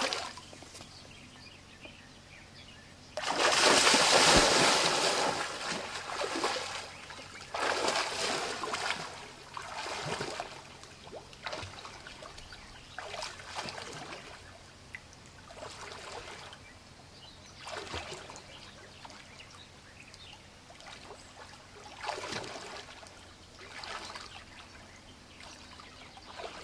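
Swing creaking and swishing in slow, even strokes about every two seconds. The strongest stroke comes a few seconds in, and the strokes grow weaker as the swing winds down.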